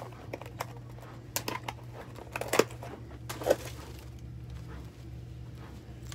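Rustling and crinkling of packaging as items are handled in a box, with sharper crackles about two and a half and three and a half seconds in, over a steady low hum.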